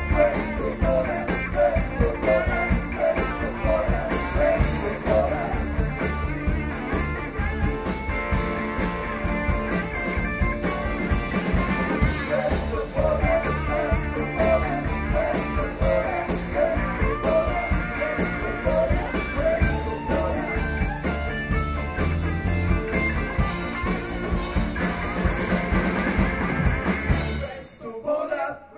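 A band playing a bluesy rock number on two lead electric guitars over a drum kit; the music stops about 27 seconds in.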